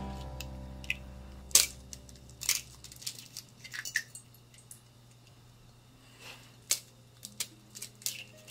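Eggs being cracked and separated: a series of sharp cracks and taps of eggshell, with egg yolks dropping into a glass bowl. Soft background music plays under it.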